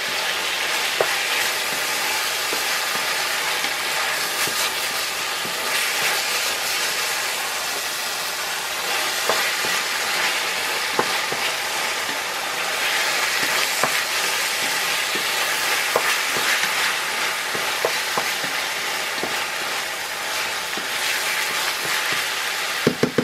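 Ground-beef filling with tomato paste sizzling in an enamel frying pan, stirred with a wooden spatula. The sizzle is steady, with scattered light clicks of the spatula against the pan.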